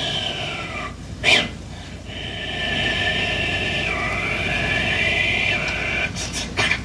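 A man imitating train sounds with his mouth into a microphone. It starts with a falling whine, then a short hiss about a second in, then a long high whine that dips in pitch around the middle and rises back again.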